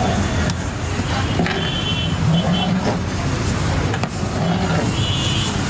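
Steady street traffic noise, with a few sharp knocks of a metal paddle against a large aluminium pot as thick haleem is stirred.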